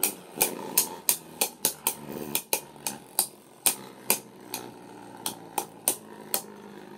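Two Beyblade Burst spinning tops, Zillion Zeus and Wild Wyvern, clashing in a plastic stadium: a quick run of sharp plastic clicks, several a second at first and spacing out towards the end, over a faint steady whir of the tops spinning on the dish.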